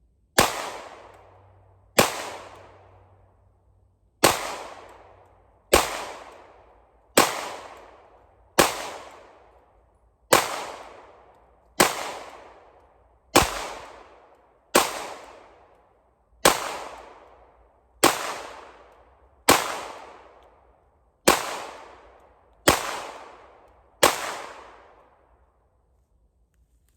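Sixteen 9mm pistol shots from a Polymer 80 PF940CL Glock-pattern build, fired one at a time at an even pace of about one every second and a half, each crack followed by a long fading echo.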